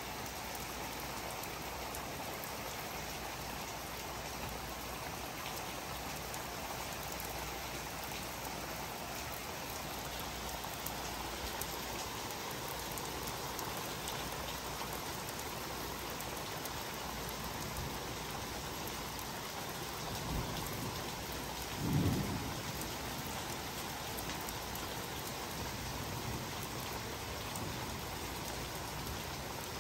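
Pouring rain falling steadily during a thunderstorm, with two short low rumbles of thunder a little after twenty seconds in, the second one louder.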